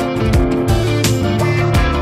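Background music: a guitar-led rock track with a steady drum beat.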